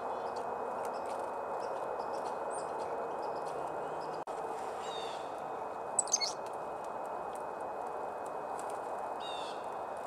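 Black-capped chickadees calling over a steady background hiss: a short run of buzzy dee notes about five seconds in, a sharp high call a second later (the loudest sound), and another run of dee notes near the end.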